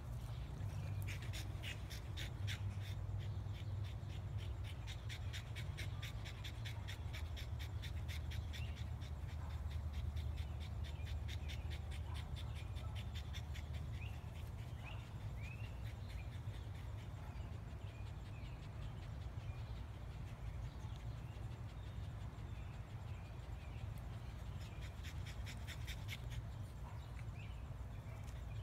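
A French bulldog and a West Highland white terrier puppy panting and snorting as they play, in quick regular puffs through the first half and again near the end, over a steady low rumble.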